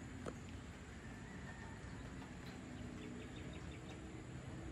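Faint rural outdoor ambience with a low, steady rumble. A single click comes just after the start, and a short run of about six high chirps from a distant animal comes between three and four seconds in.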